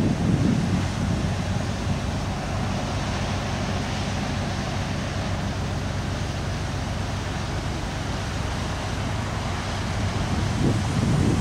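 Steady low drone of a passing cargo ship's diesel engine, with wind buffeting the microphone and gusting harder near the end.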